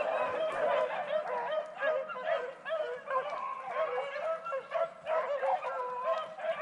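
A pack of beagles baying and yelping on a rabbit's trail. Many short, overlapping cries follow one another with no break, the sound of hounds running the scent.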